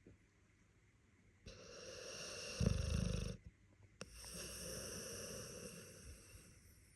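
Snoring: one rasping breath with a deep rattle toward its end, then after a short pause a longer, smoother breath that fades away.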